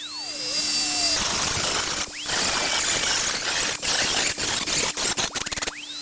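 A small power tool spinning up to a high whine and working against a rusted metal license plate, a rough, gritty scraping with many fast clicks. This is typical of rust being stripped from the plate.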